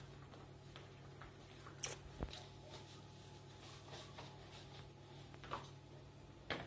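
Soft handling noises as pizza dough is stretched by hand in plastic gloves: a few faint taps and rustles, with a sharper click about two seconds in and another near the end, over a steady low hum.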